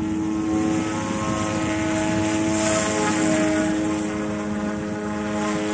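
Eachine E180 RC helicopter in flight overhead: the steady whine of its brushless direct-drive motors and the buzz of its spinning rotor blades, with a higher tone shifting in pitch. The sound swells briefly about halfway through.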